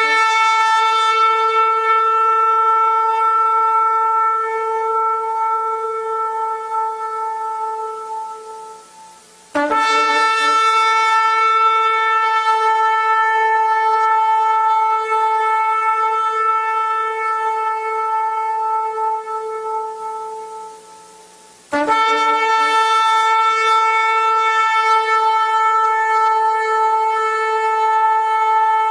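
Shofar blown in long, steady, held blasts at one pitch, bright with overtones. Three blasts in all, each about ten seconds long and fading at its end, with new ones starting about ten and twenty-two seconds in.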